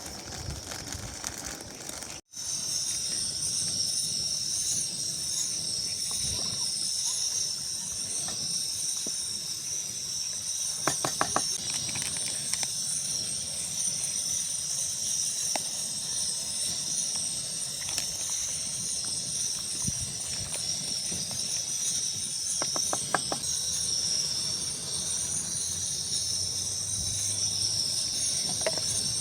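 Steady, high-pitched chorus of insects that starts after a brief drop-out near the start. Twice there is a short run of rapid clicks.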